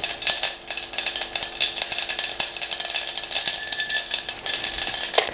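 Mustard seeds and urad dal crackling in hot oil in a stainless steel pot, a dense steady crackle: the tempering for a South Indian kuzhambu.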